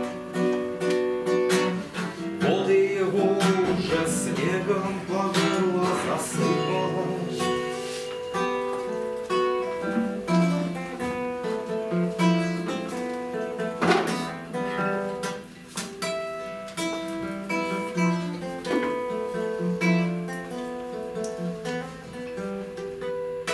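Nylon-string classical guitar played solo, an instrumental passage of fingerpicked notes and chords.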